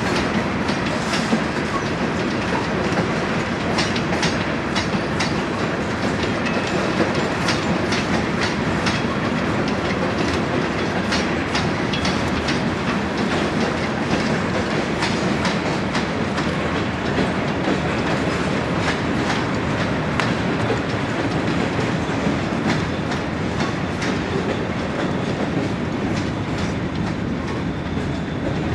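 A freight train of double-stack container well cars rolling past with a steady rumble of wheels on rail. Sharp wheel clicks over rail joints come thick in the first half and thin out later.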